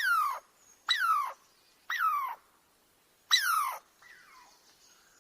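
A small animal crying repeatedly: short high calls about once a second, each falling sharply in pitch, with one fainter call near the end.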